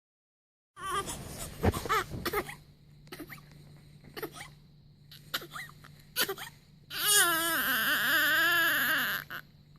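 Newborn baby crying: short wavering cries start about a second in, then a long, loud wail with a wavering pitch near the end.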